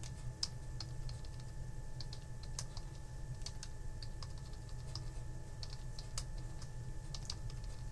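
Computer keyboard being typed on: scattered, irregular keystrokes as short text is entered, over a faint steady hum.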